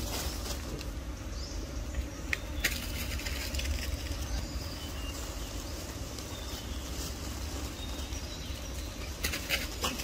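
Outdoor background sound: a steady low rumble, with a few sharp clicks about two and a half seconds in and again near the end.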